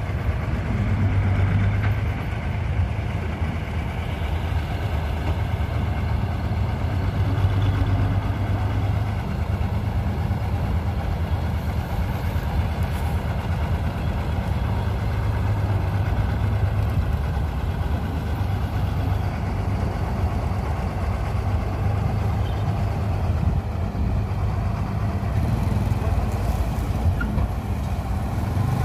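Mahindra combine harvester's diesel engine running steadily with a low, even drone as the machine moves into the standing wheat.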